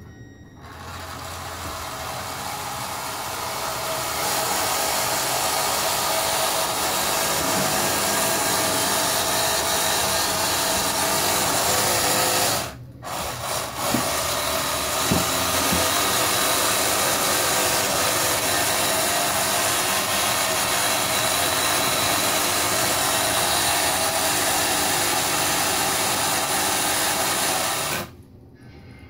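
Drive motors of a 3D-printed 1/144-scale radio-controlled model destroyer running at full throttle, a steady small-motor whir. It builds up over the first few seconds, cuts out briefly about halfway, runs on again, and stops about a second before the end.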